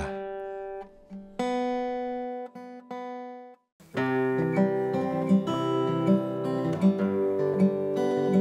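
Steel-string acoustic guitar played fingerstyle. First come a few single plucked notes that ring out and fade. After a brief gap about three and a half seconds in, a song intro is fingerpicked in a steady rhythm.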